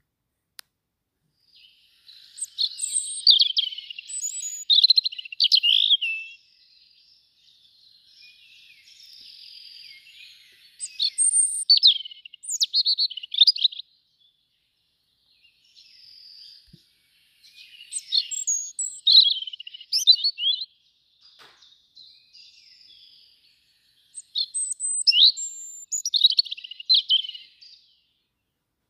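Small songbird singing in phrases of rapid, high warbling notes, each phrase a few seconds long, with short pauses between them.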